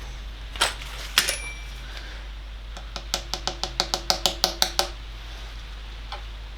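Hammer striking a socket held against a new core plug to drive it into a classic Mini's A-series engine block. There are two sharp metallic blows, the second with a short ring. Then comes a quick run of about a dozen taps, around seven a second and growing louder, and a last light tap near the end.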